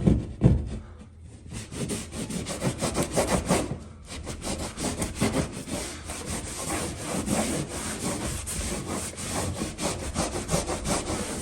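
A wet textured rag scrubbed rapidly back and forth over the edge of a plaster patch, a fast run of scraping strokes that wears down the ridge so the patch sits flush with the wall. It opens with two knocks.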